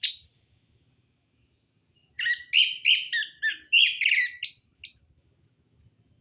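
A songbird sings a brief chirp, then about two seconds later a rapid phrase of varied chirping notes lasting about three seconds.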